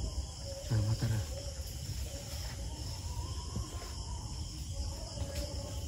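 Insects, such as crickets, chirring steadily over a low rumble, with a brief low voice about a second in.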